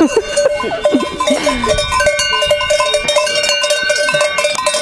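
Several cowbells clanking irregularly and without pause as the cows wearing them move about, each bell ringing at its own pitch.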